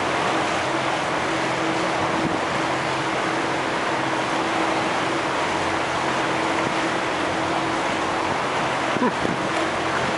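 Water taxi's motor running steadily with a constant hum, under an even rush of water and air along the hull.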